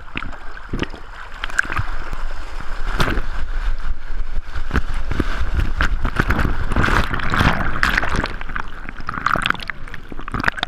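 Shallow surf washing and sloshing around a camera held at the waterline, with gurgling and many sharp splashes of water against it.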